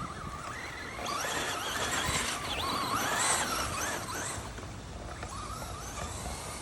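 Electric motor of a two-wheel-drive Traxxas Slash RC truck whining, its pitch rising and falling with the throttle, loudest for a few seconds in the middle.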